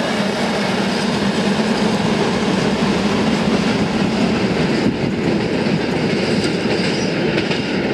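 Freight train of open-top gondola wagons rolling past, a steady loud noise of steel wheels running on the rails.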